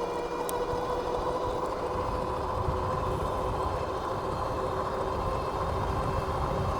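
Dual hub motors of a Philodo H8 all-wheel-drive e-bike whining steadily under way, over a low rumble of wind and tyres.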